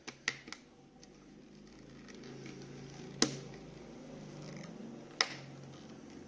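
Small plastic clicks and snaps of Beyblade launcher parts being fitted together by hand, with two sharper clicks a couple of seconds apart, over a steady low buzz that grows louder.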